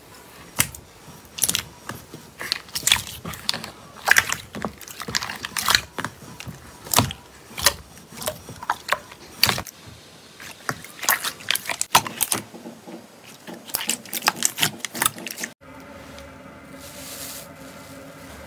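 Hands pressing and squeezing a tub of soft slime, giving many sharp wet pops and clicks as air pockets burst under the fingers. About fifteen seconds in it changes abruptly to a quieter, steady crackling hiss as a foamy rainbow slime is pressed.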